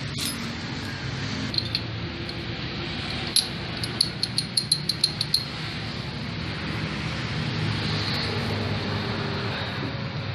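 Yamaha Gladiator engine parts clicking against each other in a quick run of about eight sharp metallic clicks around the middle, as gearbox gears and shaft are handled during reassembly. A steady background hum runs underneath.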